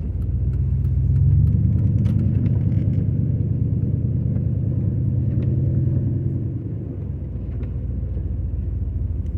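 A car's engine and road rumble heard from inside the cabin while driving, a steady low drone that eases a little about seven seconds in.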